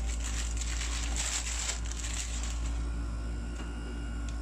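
Clear plastic accessory bag being handled, crinkling and rustling, busiest in the first two and a half seconds and then thinning out.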